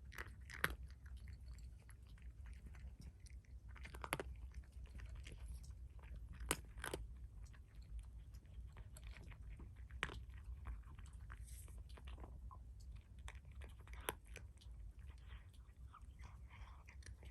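A cat chewing and crunching its food, eating heartily with scattered crunches, over a steady low hum.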